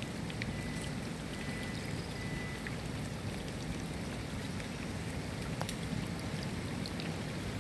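Steady rain, with individual drops ticking sharply against a constant low wash.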